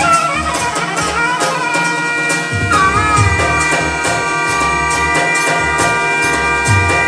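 Live Balkan ork music played on electronic arranger keyboards: a brassy lead voice with pitch bends settles into long held notes over a steady drum beat, with a short bend about three seconds in.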